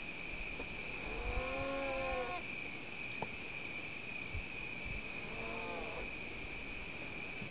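Two short beaver calls, one about a second in and another about four seconds later, each arching up and then down in pitch, over a steady high drone.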